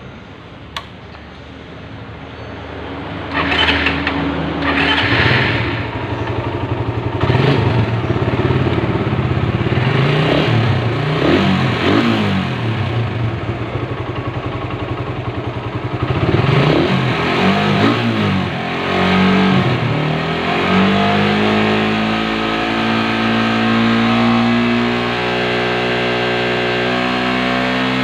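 Suzuki Satria FU 150's single-cylinder four-stroke engine running and revved in several blips, then taken up in a long rising rev held at high rpm near the end. The freshly rebuilt engine runs smoothly.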